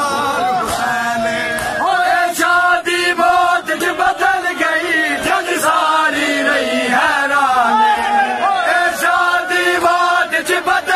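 Men chanting a Punjabi Shia noha, a mourning lament, their voices rising and falling together, with sharp slaps of hands striking chests in matam sounding over the chant.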